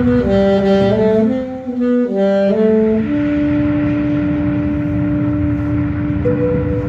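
Alto saxophone played live over a recorded backing track: a run of short stepped notes for about three seconds, then one long held note.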